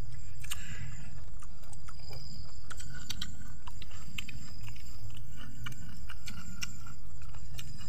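Crunchy chewing and biting of raw vegetables, close up, as many small crisp clicks over a steady low rumble.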